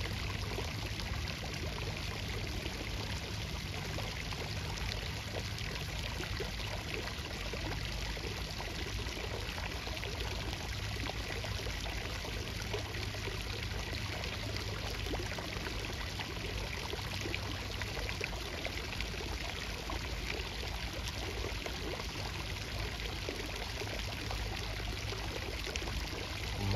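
Flowing water rushing steadily, an even noise that does not change.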